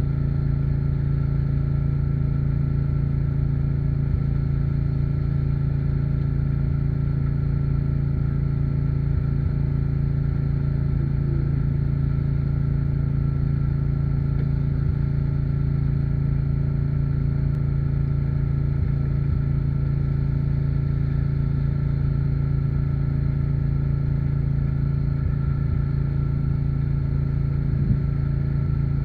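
An engine running steadily at an even speed, a constant low hum that does not change in pitch or level.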